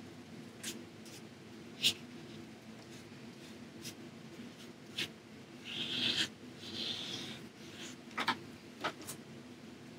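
Paintbrush brushing acrylic paint onto gessoed watercolor paper: two soft swishing strokes about six and seven seconds in, with a few light clicks and taps of the brush scattered through. A faint steady hum runs underneath.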